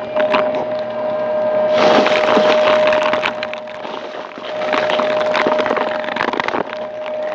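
Stick vacuum running over carpet with a steady whine, and bursts of crackling and rattling as debris is sucked up, loudest from about two seconds in and again past the middle.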